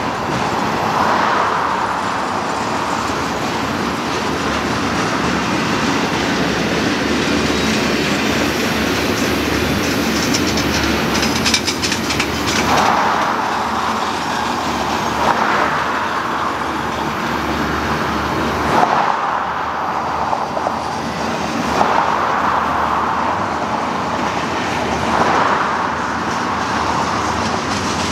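Double-stack intermodal freight train rolling past: steady noise of steel wheels on the rails, swelling for a moment every few seconds as the cars go by.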